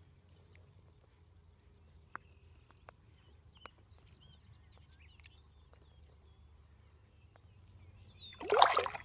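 Faint outdoor ambience with small birds chirping and a low steady hum, broken by a few small clicks. Near the end comes a brief loud rustling burst of noise lasting under a second.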